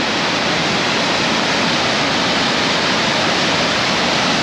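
Muddy floodwater from a stream in flash flood pouring over a terrace edge like a waterfall: a steady, even rush of water.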